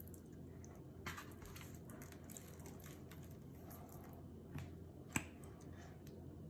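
Faint wet squishing of hands rubbing mustard over a raw pork butt on a metal sheet pan, with a few soft clicks and one sharper click about five seconds in.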